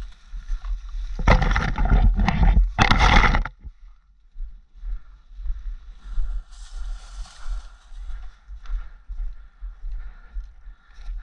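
Leaves and branches of dense rhododendron bushes brushing and scraping loudly against the camera and microphone as a player pushes through, for about two seconds a second in. After that, softer rustling and footsteps on leaf litter.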